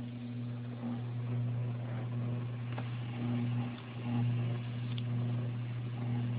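CatGenie self-washing litter box running its cleaning cycle: a steady motor hum with a faint hiss.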